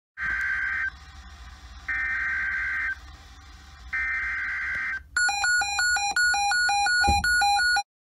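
Motorola digital alarm clock's alarm going off: three slow beeps of about a second each, then a faster, louder run of short beeps switching between two pitches, about three a second.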